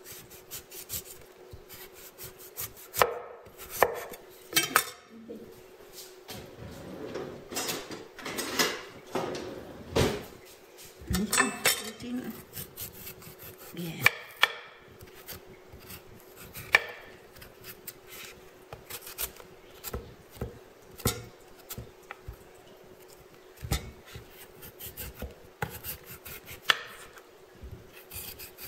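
Taro root being peeled by hand with a cleaver and then a vegetable peeler: irregular scraping strokes as the blade takes off the rough skin, with sharp knocks of the tool and root against a wooden cutting board.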